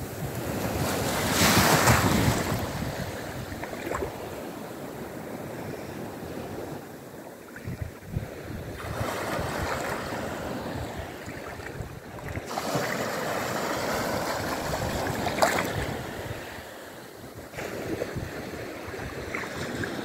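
Small sea waves breaking and washing up onto a sandy beach, the surf swelling and ebbing in surges every few seconds, with wind buffeting the microphone.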